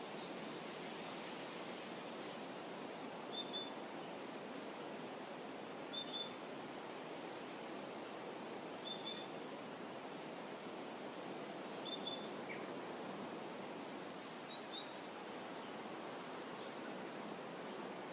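Calm shoreline ambience: a steady soft wash of rippling water, with a small bird giving short high chirps every few seconds.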